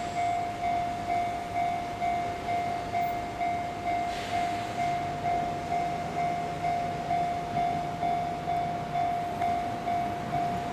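Japanese level-crossing warning bell ringing: a steady electronic 'kan-kan' strike repeating at about one and a half a second. A brief hiss comes about four seconds in, and a low hum joins from about halfway.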